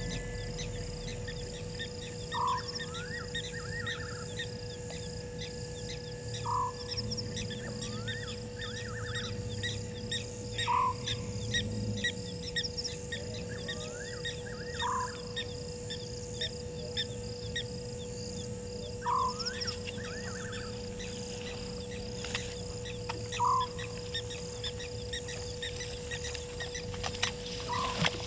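A wild animal call, most likely a bird, repeats about every four seconds: a short rising note followed by a quick cluster of higher notes. Steady insect trilling runs underneath.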